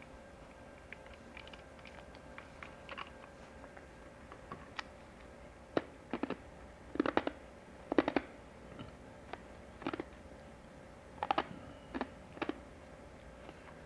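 Irregular taps and clinks of cookware or tableware being handled, some in quick clusters, over a faint steady hum.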